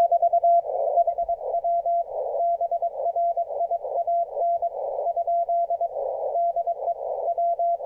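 Morse code (CW) signal received on an HF amateur radio transceiver: a tone of about 700 Hz keyed in rapid dits and dahs, with band static hissing between the characters. It is heard through a regular communications speaker rather than a tuned CW speaker.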